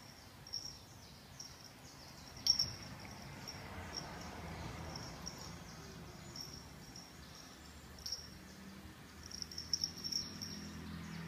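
Faint high-pitched insect chirping in short repeated trills, with a couple of light clicks.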